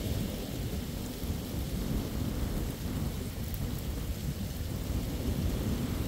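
Wind buffeting the microphone in a continuous, fluctuating low rumble, over the hiss of small waves breaking on a sandy beach.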